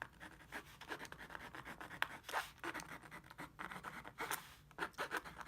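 Paint pen writing by hand on a painted canvas: quick, irregular scratchy strokes, some louder than others.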